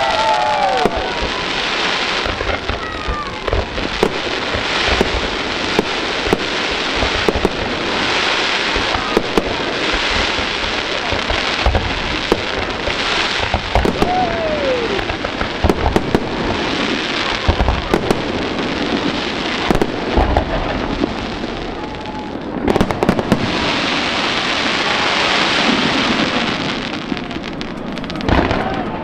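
Fireworks display: many shell bursts and rising comets going off in quick succession, with a continuous crackling hiss between the bangs. The barrage thins out near the end.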